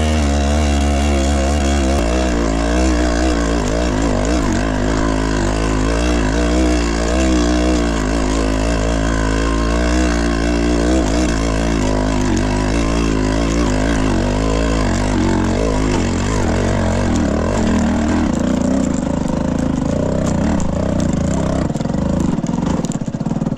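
Motorcycle engine running on the move, its pitch rising and falling constantly as the throttle is opened and closed.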